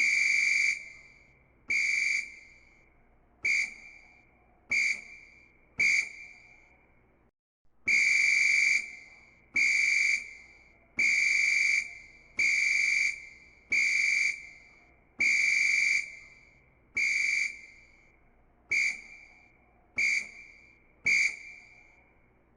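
Football referee's whistle blown in a run of about fifteen blasts, some short and some held for about a second. Each is a steady high-pitched tone that stops sharply and leaves a brief echoing tail, with a short pause about a third of the way through.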